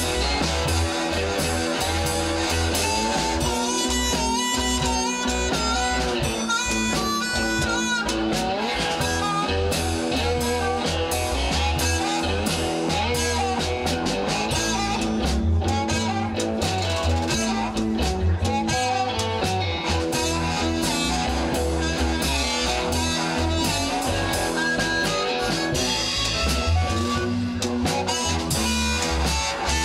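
Live blues band playing: a harmonica leads over cigar box guitars and drums.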